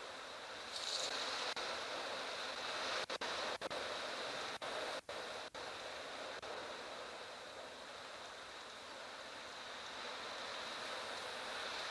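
Strong wind of a dust storm blowing, a steady rushing hiss that briefly cuts out several times in the middle.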